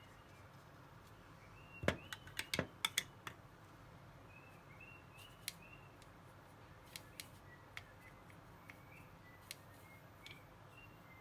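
Faint bird chirps in the background, short rising-and-falling notes repeated every second or so. Around two seconds in comes a quick cluster of sharp clicks and taps, the loudest sounds here, and a few single clicks follow later.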